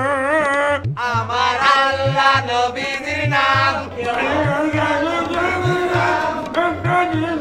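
A man's wordless, wavering singing, in the manner of a mute man trying to sing, over a hand drum beating a little more than once a second with a low note that rises on each stroke.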